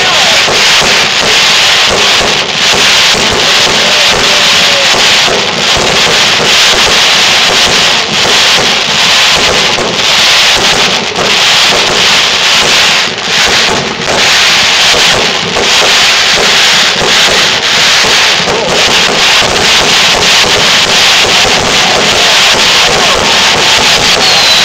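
Fireworks display: loud, continuous crackling and popping from many bursting aerial shells and crackling stars, with no break.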